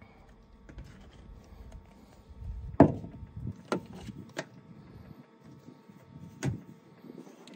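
A plastic blender cup set down with a sharp knock about three seconds in, then a few lighter taps and one more knock near the end as a knife and tomatoes are handled.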